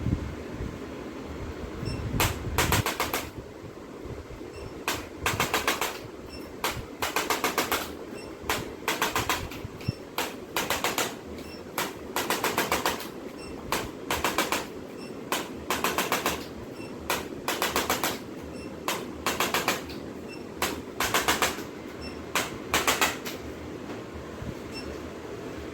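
Short bursts of very rapid mechanical tapping from a percussive instrument, each under a second long, repeating irregularly every one to two seconds over a low steady hum.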